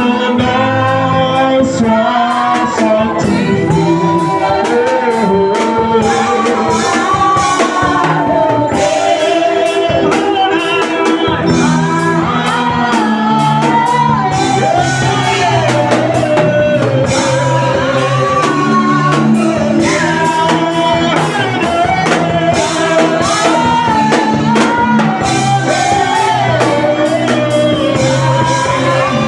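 Gospel worship music with singing over a band with bass and drums, a steady beat.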